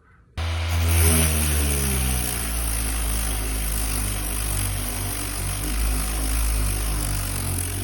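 Electric orbital sander switched on about half a second in, then running steadily against a rusted car body panel: a low motor hum under a strong high hiss from the abrasive sanding down old paint and rust.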